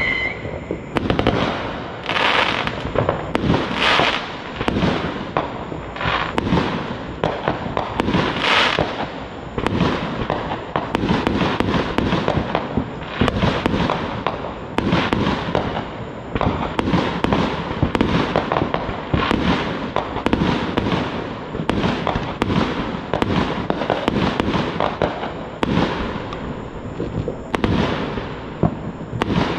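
Fireworks going off in a near-continuous barrage of bangs and pops, many overlapping, with a few sharper bursts in the first ten seconds.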